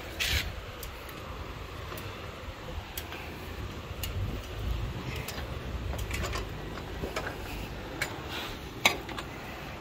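Irregular light clanks and clicks of someone climbing a metal ladder, the sharpest knock near the end, over a low rumble of wind on the microphone.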